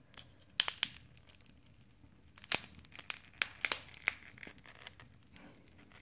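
Sharp cracks and crackles from the Huawei Mate 20 Lite's broken screen glass splintering and its adhesive tearing as a metal pry tool works it off the frame. A few snaps come about half a second in, then a busier run of cracks from about two and a half seconds in.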